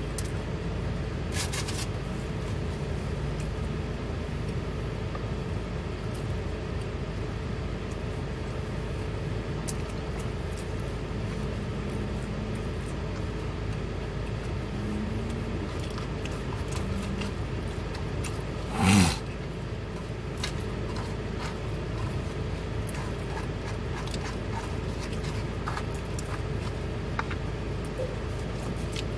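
Steady low hum of a running car, heard inside its cabin. A little past two-thirds of the way in comes one brief, loud low-pitched sound.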